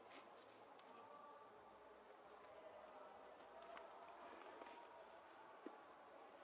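Near silence outdoors, with a faint, steady, high-pitched insect drone throughout.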